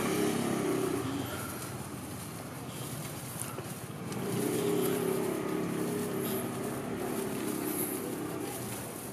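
Engines of small vehicles passing close by in a narrow street: a motor scooter at the start, then another engine from about four seconds in that fades out near the end.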